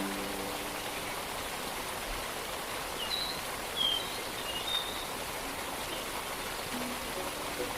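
Steady rushing water of a distant waterfall, an even hiss, with a few short high bird chirps about halfway through. Soft held music notes sound faintly at the start and just before the end.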